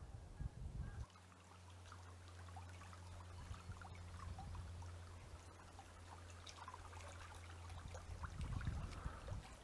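Water trickling, a faint patter of small splashes, with a steady low hum underneath from about a second in.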